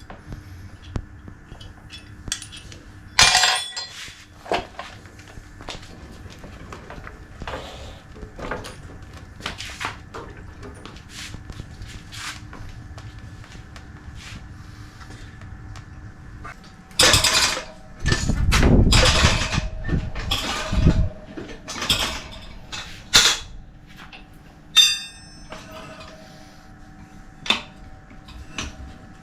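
Metal hand tools and motorcycle wheel parts clinking, knocking and clattering irregularly during a tyre change, with a louder, longer clatter a little past the middle and a ringing metal clink near the end.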